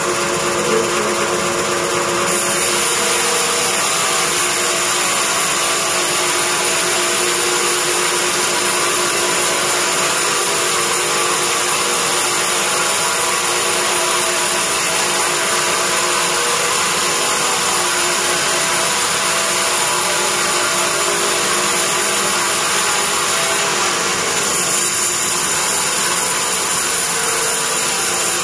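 Sawmill log band saw running and ripping through a beam of hard teak: a loud, steady machine noise with a constant hum under it.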